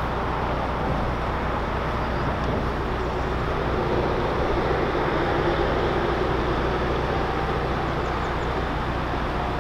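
Steady rushing noise of heavy traffic on the M6 motorway, swelling slightly midway, over the low, even hum of the narrowboat's engine.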